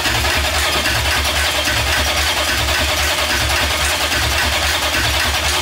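Corvette ZR1's LT5 V8 being cranked by its starter with an even, rhythmic chug, turning over but not firing because there is no fuel in the car.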